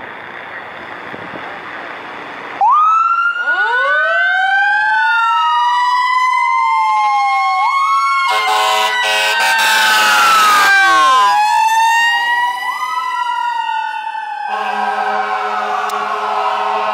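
Fire engine sirens start up about two and a half seconds in. An electronic siren wails up and down while a Federal Q mechanical siren winds up from a low growl to a high whine. An air horn blasts for about two seconds near the middle, the Q winds down, and a long steady horn tone runs on under the wailing siren near the end.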